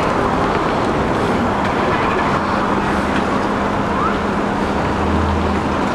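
Steady rushing street noise of traffic and wind on the microphone, with a steady low hum joining about two seconds in.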